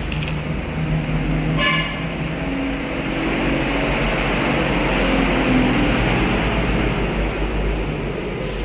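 Steady road traffic going by, with a short vehicle horn toot about one and a half seconds in.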